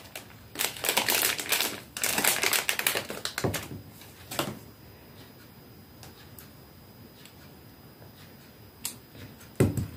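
Clear plastic wrapper crinkling and rustling as it is handled: two dense spells of crackling in the first three seconds, a couple of shorter crackles after, then a single crackle and a last short rustle near the end.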